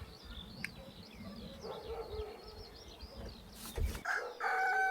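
Small birds chirping faintly in the background, a brief knock about three and a half seconds in, then a rooster starts a long crow just before the end.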